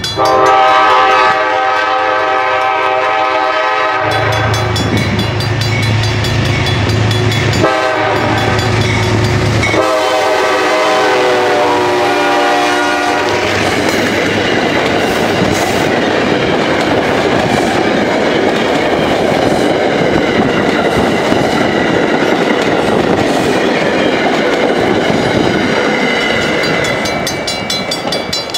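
GE Genesis P32AC-DM diesel locomotive sounding its horn in four blasts, the third one shorter, the grade-crossing signal, as it passes close by with its engine running. The coaches then roll past with a steady rumble and wheel clatter.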